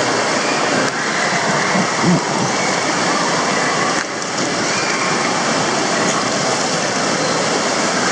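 Steady rushing noise of water and air as a raft slides down an indoor water slide.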